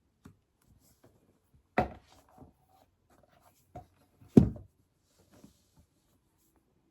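Desk work sounds: a few scattered light taps and clicks, with two loud knocks about two and a half seconds apart, the second the louder.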